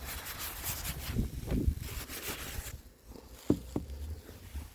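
Gloved hands rustling and scraping in snow on a snow-covered vehicle, with two soft thumps about three and a half seconds in.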